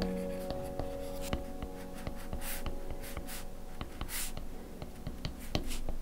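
Apple Pencil tip tapping on an iPad's glass screen while dotting stars into a painting: a run of light taps, a few a second, with three short scratchy strokes in the middle. A soft piano chord fades underneath.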